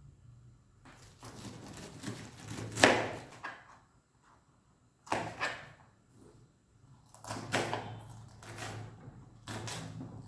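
Intermittent handling noises, with bumps and rustles like a door or drawer and a sharp knock about three seconds in.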